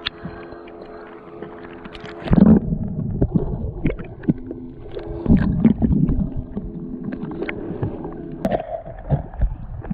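Water sloshing and splashing around an action camera as a freediver kicks up to the surface and back under, with loud surges about two and a half and five and a half seconds in and scattered knocks. A steady low hum runs beneath for much of it.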